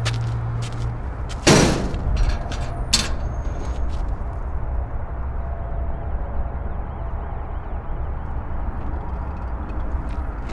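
A heavy door bangs about a second and a half in, and a sharper knock follows a second and a half later; after that only a steady low rumble of outdoor ambience remains.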